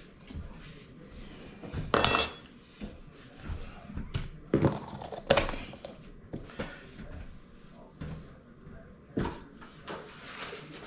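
Kitchen clatter: several separate knocks and clinks of dishes and utensils being handled, the first, about two seconds in, with a short metallic ring.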